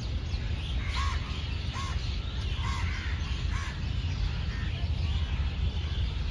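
A crow cawing four times, about a second apart, starting about a second in, over a steady low rumble.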